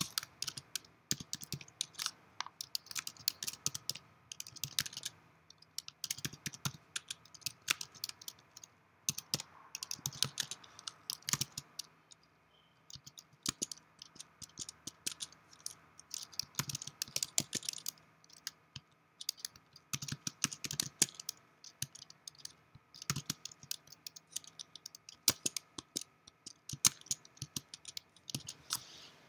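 Typing on a computer keyboard: bursts of keystrokes with short pauses between them, and a sparser lull about halfway through.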